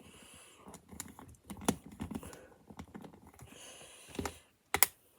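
LEGO plastic bricks being handled and pressed together: scattered clicks and soft rustling, with a sharp double click near the end.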